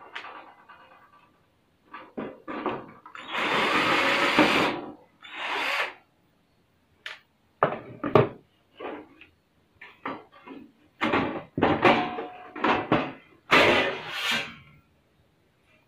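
Sheet-metal cabinet cover of a Panasonic mini hi-fi main unit being worked loose and lifted off by hand: a string of scrapes, rattles and knocks. There are longer scraping stretches about three to five seconds in and many short ones near the end.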